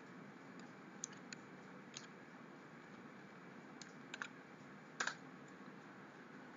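Faint, scattered computer keyboard keystrokes, about seven irregular taps over a low room hiss, as a formula is typed into a spreadsheet. The loudest tap comes about five seconds in.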